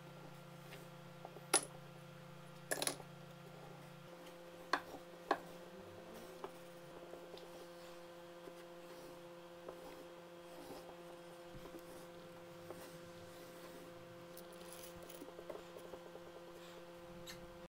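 Small glass jars of screws clinking, and the screws inside shifting, as a plywood rotating storage wheel is turned by hand: a few sharp clinks in the first six seconds, then fainter scattered ticks, over a steady hum.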